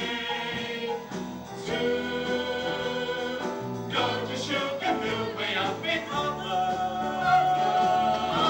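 Music: several voices singing together, holding chords that change every second or so, as part of a swing-era train-song medley.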